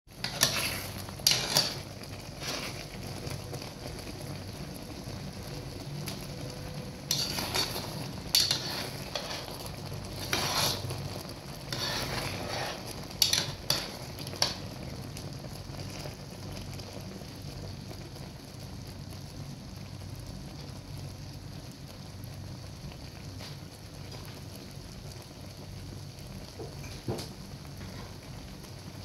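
Thick creamy sauce simmering in a pan, bubbling and popping steadily, with several short, louder bursts of cooking noise in the first half.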